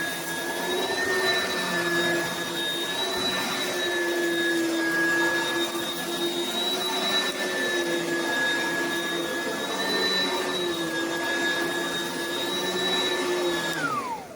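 Oreck Commercial XL bagged upright vacuum cleaner running with a steady high whine. Near the end it is switched off and the whine falls in pitch as the motor winds down.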